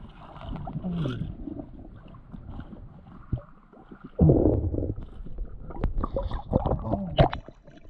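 Knocks and handling clatter aboard a small fishing boat, with a short loud rush of sloshing water about four seconds in.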